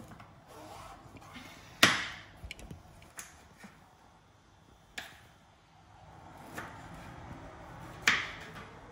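Kitchen utensil knocks: three sharp knocks about three seconds apart, each trailing off briefly, with a few lighter taps and quiet handling noise between.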